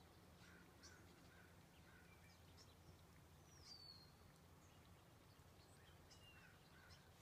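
Near silence, with faint, scattered bird chirps and calls over a low steady hum; one clearer call glides down in pitch about four seconds in.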